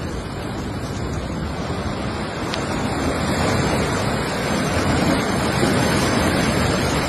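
Muddy floodwater rushing and churning through a flooded street and a walled channel: a steady, loud noise of fast-moving water that grows louder about three seconds in.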